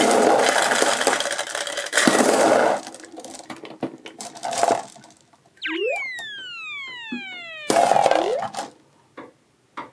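Small plastic balls rattling and clattering out of a bottle onto a heap of gumballs, then a cartoon sound effect: a quick upward swoop followed by a long falling whistle. Another short burst of clatter comes about two thirds of the way through.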